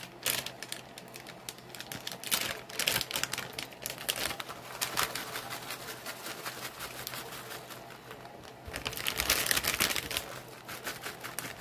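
Plastic bag of shredded sharp cheddar crinkling and rustling in several bursts as it is handled and the cheese is shaken out.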